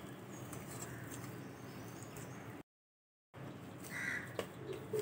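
Soft, faint squishing of hands kneading a mashed corn and potato dough in a steel bowl, over a steady low hum. The sound drops out completely for under a second partway through, then a short bird call comes about four seconds in.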